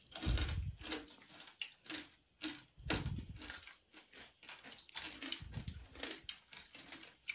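Several people chewing mouthfuls of crab curry eaten by hand, with irregular crunches and wet mouth smacks.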